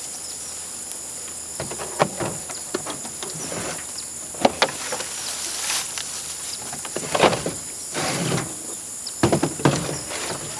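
Scattered knocks and rattles of a chicken coop's doors and a crate being handled, several sharp ones spread through, over a steady high insect drone.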